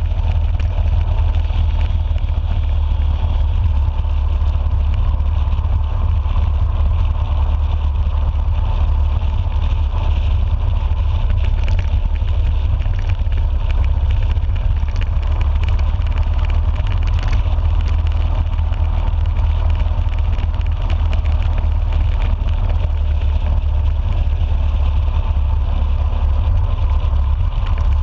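Cruiser motorcycle running steadily at road speed, with a deep, even rumble of engine and wind on the microphone.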